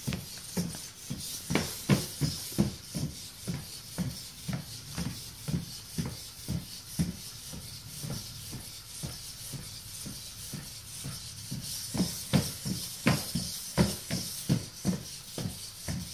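Feet of a Raspberry Pi hexapod robot tapping on a hardwood floor as it walks: an uneven patter of knocks, two to three a second, over a faint steady hiss.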